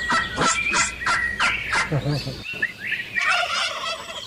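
Tom turkey gobbling: a fast rattling run of sharp notes for about two seconds, then a more jumbled stretch of gobbling calls.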